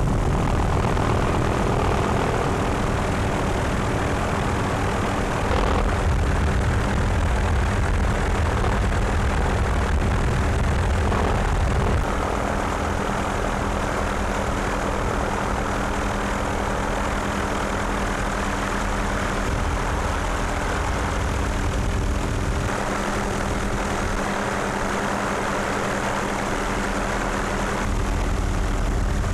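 Helicopter in flight: a steady engine and rotor drone with several constant hum tones under it, its balance shifting slightly a few times.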